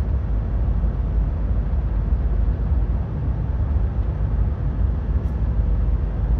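Steady low rumble of road and engine noise inside a moving vehicle's cabin on a highway.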